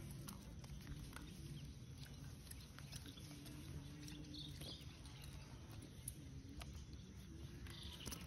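Faint animal calls, several short low calls a second or two apart, over a steady low outdoor rumble, with a few light clicks and taps.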